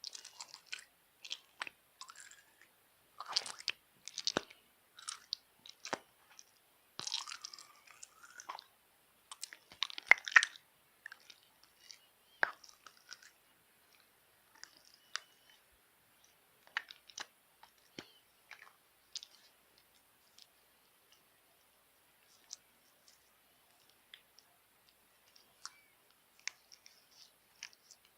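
Firm slime being pressed and worked by hands, giving irregular crackling clicks and small pops. These are dense for the first ten seconds or so, then thin out to scattered faint clicks.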